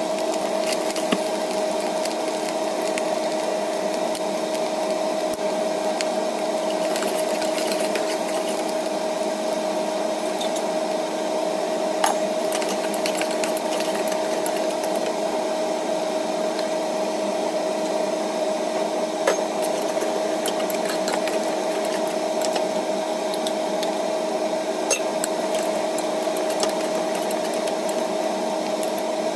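A metal spatula scraping and knocking in a clay pot as fried rice is stirred, with scattered clicks and a few sharper knocks, over a steady hum.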